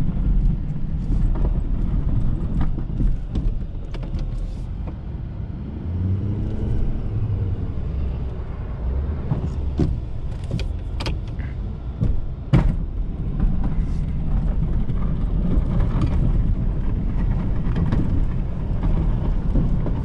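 Ford F-350's 6.7-litre Power Stroke V8 turbodiesel running under load while plowing snow, its pitch rising and falling briefly about a third of the way in. A few sharp knocks come just past halfway, the loudest at about twelve and a half seconds.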